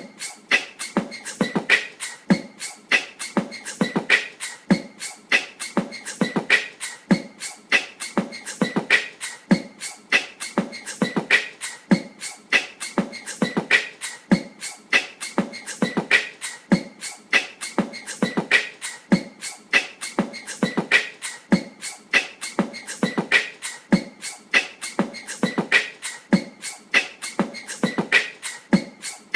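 Wobbly ceiling fan clicking and knocking in a steady rhythm as it turns: a strong knock about every three-quarters of a second, with lighter clicks between. This is the sign of an off-balance fan rocking on its mount with each turn.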